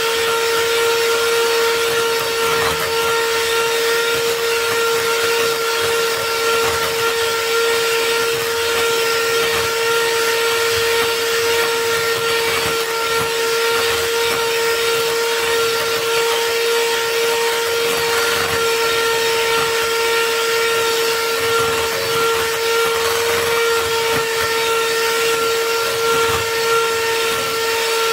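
Electric hand mixer running steadily at one speed, a steady whine over the hiss of its beaters whipping a thick cream frosting in a glass bowl as it stiffens.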